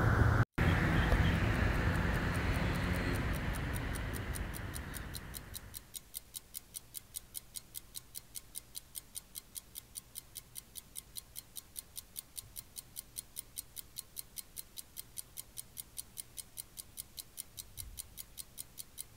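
Outdoor background noise fades out over about six seconds, then a clock ticks steadily and quickly, about four ticks a second.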